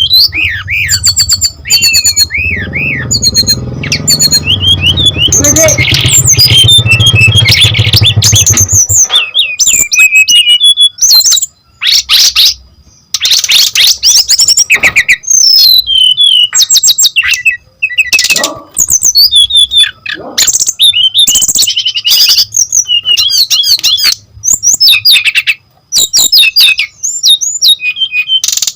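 Brown-chested jungle flycatcher singing vigorously, a rapid, varied stream of whistles, chirps and trills broken by short pauses.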